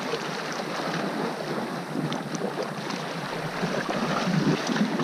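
Sea wind blowing across the microphone over small waves washing against a rocky shore, a steady rushing noise.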